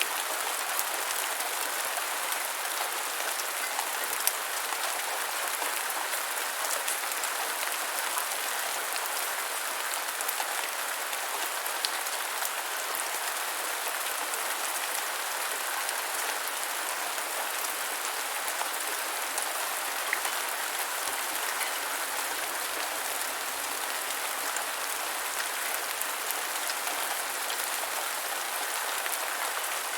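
Steady rain falling on the ground, an even hiss with scattered louder drops.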